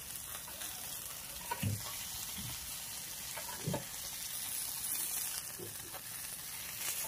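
Tilapia wrapped in banana leaf sizzling on a hot ridged grill pan, the gas flame just turned off, as it is lifted off with metal tongs, with a few light clinks and taps.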